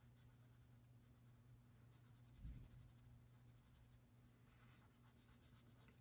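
Near silence, with faint scratching of a red crayon colouring on paper, in strokes, over a low steady hum; a soft dull bump about two and a half seconds in.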